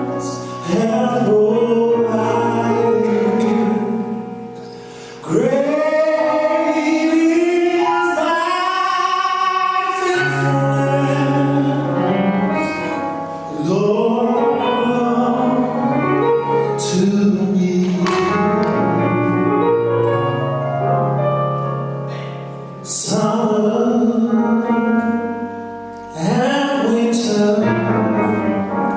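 Gospel choir singing with a female lead voice and instrumental backing, sung in phrases with short dips between them.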